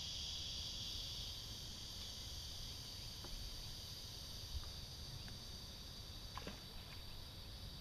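Steady high-pitched insect chorus, easing a little about a second in, over a low rumble. A few faint clicks come through as a caught sunfish is handled.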